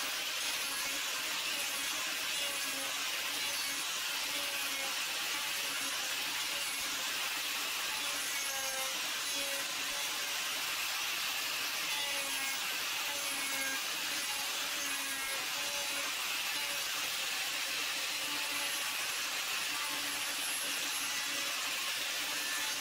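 Angle grinder with an extension-arm power-carving head running steadily and grinding into a wooden blank. The motor whine never stops, and the cutter rasps against the wood.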